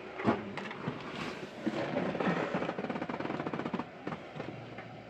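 Camera handling and movement noise: a few sharp knocks in the first second, then a fast, rattling rustle for a couple of seconds.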